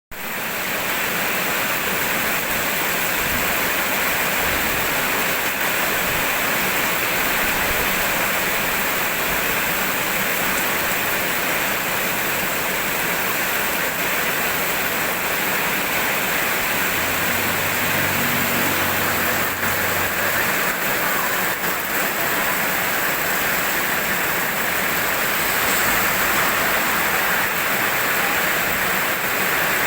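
Steady rainfall: an even, continuous hiss of rain with no change in strength.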